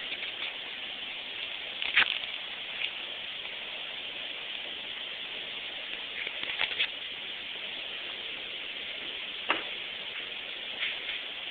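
Steady hiss from a poor cell phone recording, broken every few seconds by sharp pops that sound like gunshots, the loudest about two seconds in and a quick cluster near the middle.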